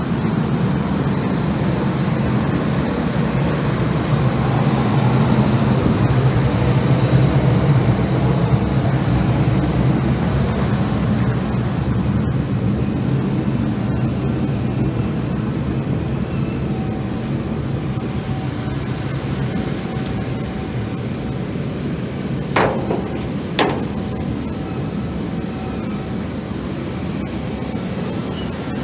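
Airport ramp noise: a steady rumble with a thin high whine from jet aircraft and ground equipment running on the apron, louder in the first third. Near the end come two short sharp sounds about a second apart.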